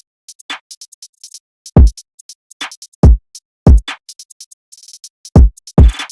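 Electronic background music with a drum-machine beat: deep kick drums at irregular spacing, with short crisp hi-hat ticks between them.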